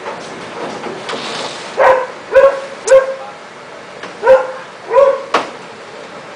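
A dog barking five times: three quick barks, a short pause, then two more, over steady background noise.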